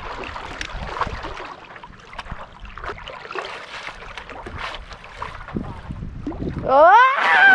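Shallow lake water lapping and small splashes of a paddle and board, with a little wind on the microphone. Near the end a loud human shout rises in pitch as the standing paddle boarder loses his balance and falls in.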